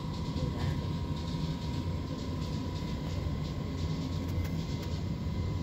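Steady low rumbling hum of a hospital ward's air conditioning, with a thin, steady high whine over it.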